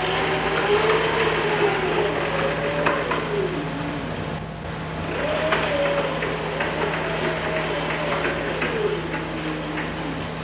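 greenBull CNC gantry rolling back and forth along the machine by hand, its roller-chain drive turning, with a whine that rises and falls in pitch with its speed and a few light clicks.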